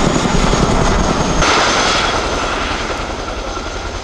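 RAF Boeing Chinook tandem-rotor helicopter flying low, its rotor blades beating in a fast, even thudding rhythm. About a second and a half in, the low thudding drops away and the sound then slowly fades.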